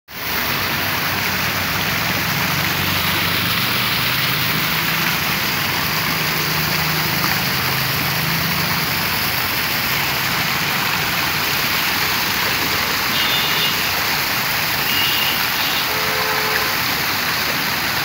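Water-wall fountain: streams of water pouring from spouts on a stone wall and splashing into a shallow pool, a steady rushing splash. A low hum runs under it for the first half.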